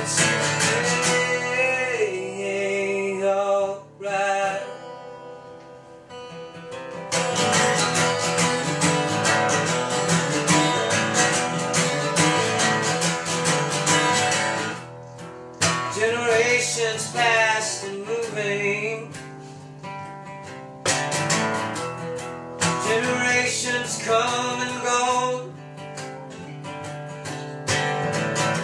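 Steel-string acoustic-electric guitar played through an instrumental passage, strummed and picked chords with brief breaks, and a wavering melody line over them at times.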